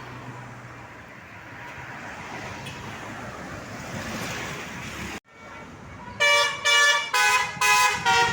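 A tour bus's musical 'telolet' horn starts about six seconds in and plays a loud run of short notes that change pitch every half second or so. Before it there is only a steady background hiss of street noise.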